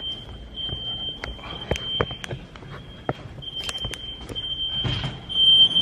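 Smoke-alarm tone, a steady high-pitched beep with short breaks that grows louder near the end. It is a prank alarm sound, not a real fire alarm. Scattered clicks and knocks sound alongside it.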